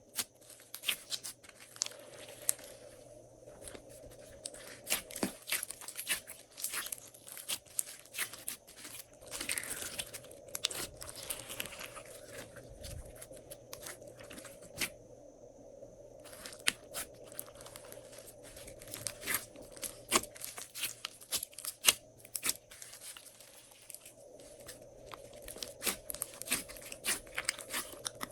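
Glossy slime being worked by hand with mixed-in add-ins, giving a long run of irregular crackling, crunching and sticky clicking sounds.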